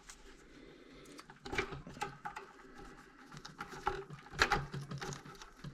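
Hands unplugging power cable connectors from an Antminer Z15 miner: irregular plastic clicks, knocks and handling rattle, with the loudest clicks about four and a half seconds in.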